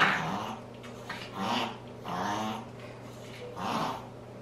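Chihuahua giving four short vocal calls, each about a third of a second long and roughly a second apart; the first is the loudest.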